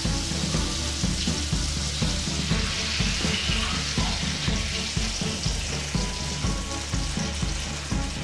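Beaten egg sizzling steadily as it is poured into a hot frying pan.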